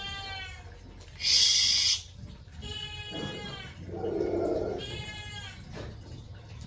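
Rottweiler puppies whining in short high-pitched cries that drop slightly in pitch, three or four times. A loud hissing burst lasting under a second comes about a second and a half in.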